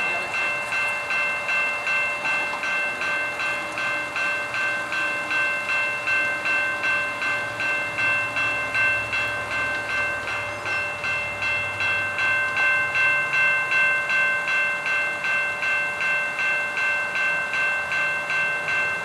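Railroad crossing warning bell ringing steadily, about two or three strokes a second, signalling an approaching train. A train rumbles low underneath.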